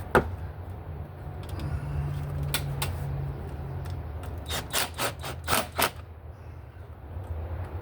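Scattered sharp clicks and taps of hand tools working on the engine bay, with a quick run of about five clicks about five seconds in, over a steady low hum.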